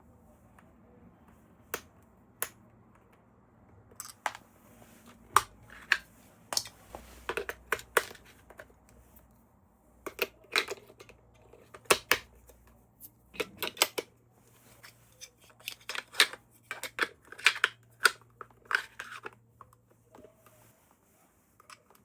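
Toy packaging being handled and opened: irregular sharp clicks and taps mixed with short crinkling, tearing and snipping sounds, coming in clusters.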